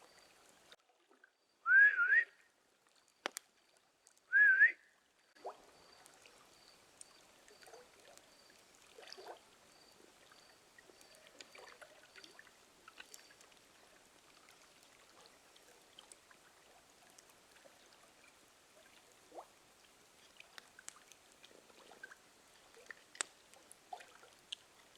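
Two short, loud rising whistles about two and a half seconds apart, with a sharp click between them. Afterwards, a faint trickle of water with a faint, regular high pip for a while and scattered faint clicks.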